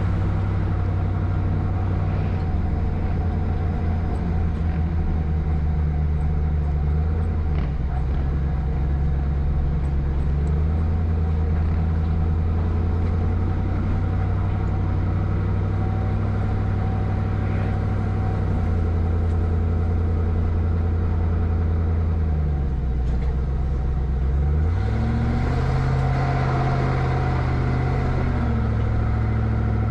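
1996 Land Rover Discovery 1's V8 engine, breathing through a Magnaflow exhaust, pulling steadily at low revs. Near the end the revs dip, climb for a few seconds, then drop back.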